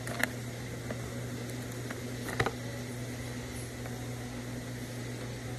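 Steady low mechanical hum of indoor room tone, with a few faint clicks, the clearest just after the start and about two and a half seconds in.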